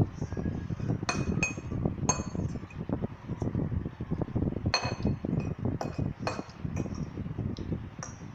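Metal forks clinking and scraping against ceramic bowls while eating noodles: about eight sharp, ringing clinks at irregular intervals over low shuffling noise.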